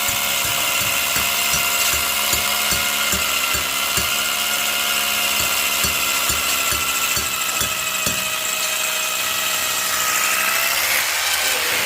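Power drill running at a steady whine, driving a fastener straight into a wall panel without a pre-drilled hole, with irregular knocks over the first eight seconds.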